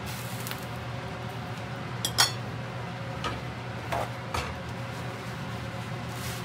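A few sharp metallic clinks of a frying pan being handled on a glass cooktop, the loudest about two seconds in, over a steady low hum.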